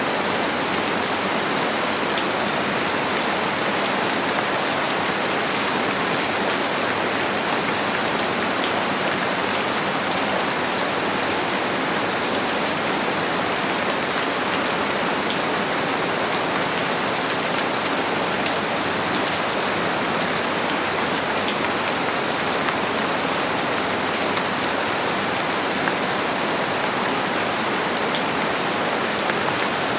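Steady heavy rain falling, a dense even hiss with many fine drop patters and no thunder.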